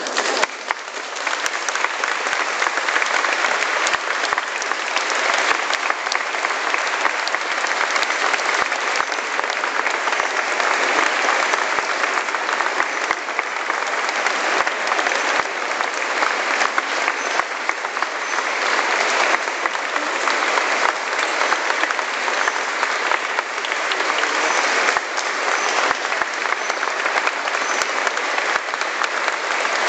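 A large crowd applauding, breaking out suddenly and keeping up at a steady, dense level.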